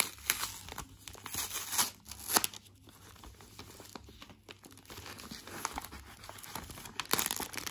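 Paper and foil wrapping of a chocolate bar being unfolded and torn open by hand, crinkling and rustling in irregular bursts, with a louder tearing rustle near the end.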